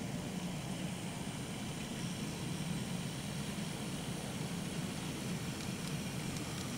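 N scale model diesel locomotives running on the track: a steady low hum of motors and wheels, with a few faint clicks near the end as the train comes closer.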